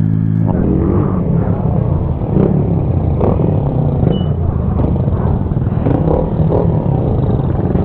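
Motorcycle engine running while riding, with road and wind noise, picked up from a camera on the bike. A steady engine note gives way to a rougher, uneven rumble about half a second in.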